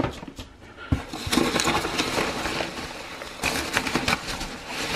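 Plastic bubble wrap crinkling and polystyrene packing peanuts rustling as hands dig through a cardboard box. A few sharp clicks come first, then a dense crackling rustle that is loudest a little past halfway.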